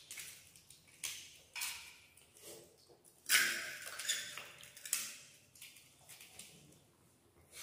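Hands mixing rice and curry on steel plates: irregular squishing and scraping, the loudest a little over three seconds in.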